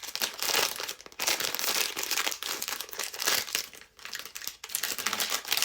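Crinkly blind-box packaging being crumpled and torn open by hand, in uneven bursts of crackling.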